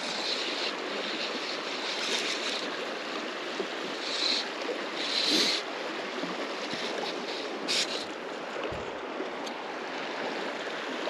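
River current flowing steadily in riffles, an even rushing hiss, with a few brief higher swishes on top.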